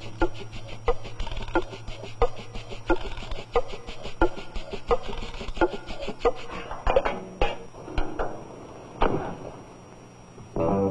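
A wrench clinking on a hydraulic fitting of an excavator boom, about one and a half strokes a second, over a steady low hum. The strokes turn into a few harder, irregular knocks, ending in one heavy thud.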